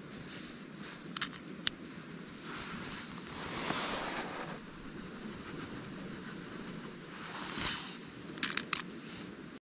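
A few light clicks and taps from small plastic camping gear being handled by hand, twice about a second in and several in quick succession near the end, over a steady background hiss.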